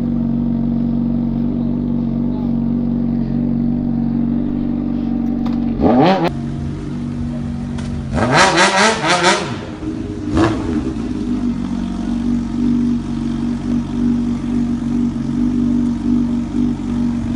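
Motorcycle engine idling steadily and revved several times: one blip about six seconds in, a quick burst of blips between about eight and nine and a half seconds in, and one more shortly after ten seconds.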